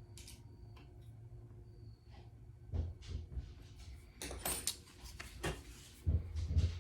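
Light clicks, taps and scrapes of small hardware being handled as an M-LOK sling mount is fitted onto a rifle handguard rail and its screw is worked into the M-LOK nut. There is a louder scrape a little past the middle and a few dull thumps near the end.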